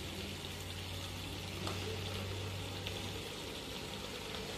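Kitchen tap water running steadily into a stainless-steel sink, a faint even splashing, with a low hum under it for about the first three seconds.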